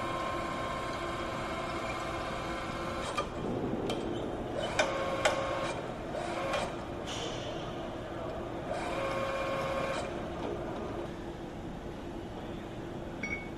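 Steady machinery hum in an engine assembly shop, with scattered sharp clicks and clanks of tools and parts, clustered between about three and five seconds in and again near ten seconds.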